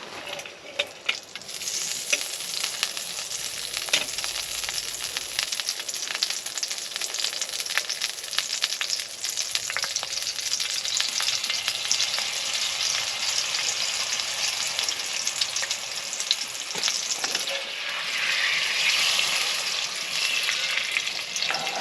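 Food frying in a hot pan of butter: a steady sizzle with dense crackling that starts about a second and a half in.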